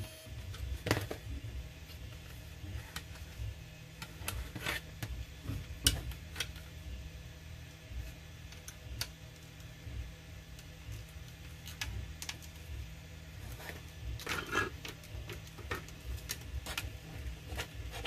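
Scattered sharp clicks and taps of a small screwdriver and hard plastic parts being handled while screws are driven into a Nerf blaster's plastic shell, the sharpest just under halfway through. Underneath runs the steady low hum of a 3D printer's motors.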